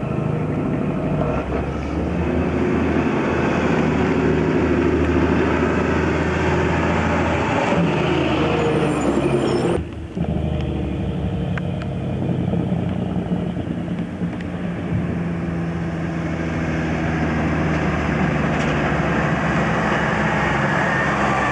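Heavy diesel trucks running along the road, with engine and tyre noise throughout. The sound breaks about ten seconds in; then a truck and trailer comes up and passes close, with a whine that falls in pitch near the end.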